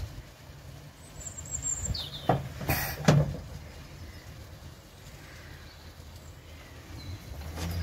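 A few sharp knocks and clunks from hands-on work on a narrowboat engine, three close together about two to three seconds in, over a low uneven rumble, with a faint bird chirp.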